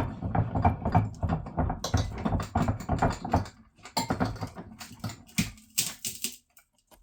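Rapid, irregular clattering and knocking of hard objects being handled and set down, with a short pause about six and a half seconds in.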